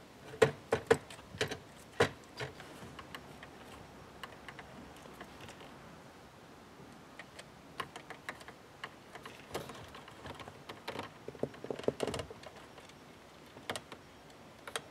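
Sharp clicks of hand-held wire-stripping pliers snapping on a wire, loudest in the first two seconds or so. Later comes a run of smaller clicks and plastic rattles as wires and connectors are handled at a plastic HVAC control module.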